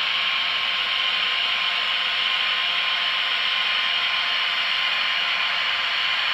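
Märklin model electric locomotives hauling a heavy model ore train slowly along the track: a steady, hissy whirr of small locomotive motors and metal wheels running on the rails.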